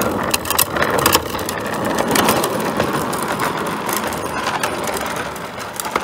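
Hard plastic wheels of a Bobby Car ride-on toy rolling over rough asphalt: a steady gritty rumble with scattered clicks and rattles, fading a little near the end.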